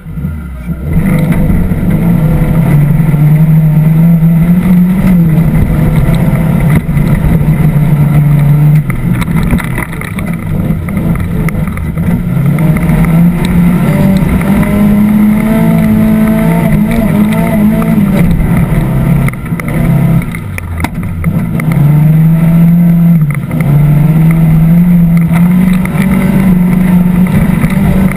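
Off-road 4x4's engine pulling away hard about a second in, then running under heavy throttle as the vehicle drives a sand course, its pitch rising and falling with the revs. The revs drop briefly about ten seconds in and again around twenty seconds in before climbing again.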